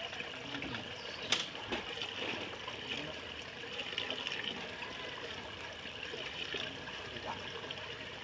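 Steady trickling of running water, with one sharp click about a second and a half in.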